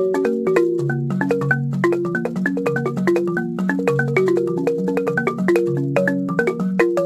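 Siamou balafon, a West African wooden-keyed xylophone, played with mallets in a quick, steady stream of notes: a low line of ringing notes under a higher melody, cycling through a repeating pattern.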